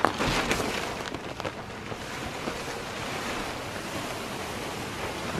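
A large plastic poly tarp rustling and crackling as it is dragged off the fabric roof of a portable garage tent, with a few sharp crackles at the start and then a steady sliding rustle.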